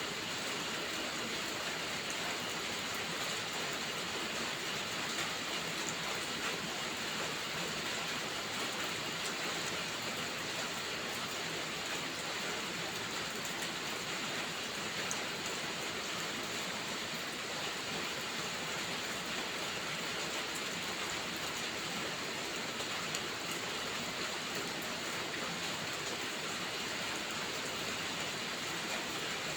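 Steady rainfall, an even hiss with scattered faint ticks of drops.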